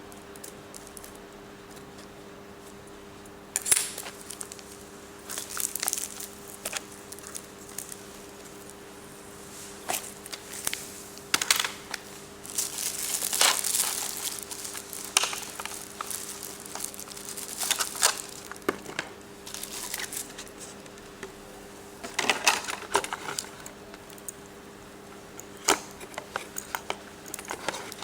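Plastic packaging crinkling and small hard plastic parts clicking and knocking as a spray fan is unpacked and handled. The sounds come in irregular bursts over a faint steady hum.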